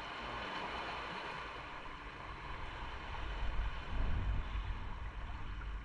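Steady rush of wind and road noise from a motorcycle on the move, with a low buffeting rumble that grows stronger about halfway through.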